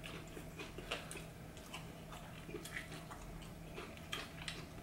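Close-miked chewing of thin-crust pizza: a steady run of soft wet mouth smacks and clicks, about three or four a second.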